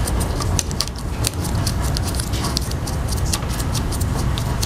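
Irregular light clicks and taps, several a second, from small parts being handled and fitted onto a motorcycle fuel pump assembly by hand, over a steady low hum.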